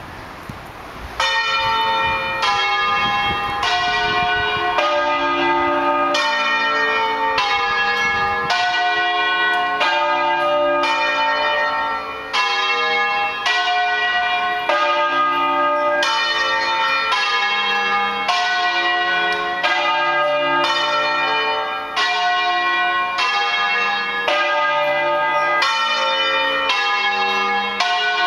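Peal of five balanced, electrified church bells tuned D, F, G, A and C (Brighenti castings of 1847 and 1932, a De Poli recast of 1968), rung in the Bolognese 'doppio' style. The bells start striking about a second in, then sound one after another at about one and a half strokes a second, the notes changing order as they go.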